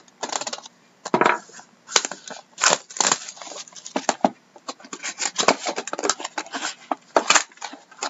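Crinkling plastic shrink wrap being pulled off a cardboard trading-card hobby box, then cardboard rustling and scraping as the box is opened and its mini boxes are slid out. It is a dense run of irregular crackles.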